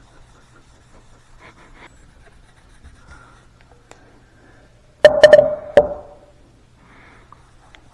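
Faint scuffs of a cloth buffing a waxed walnut board, then a brief clatter of several sharp knocks with a short ring about five seconds in.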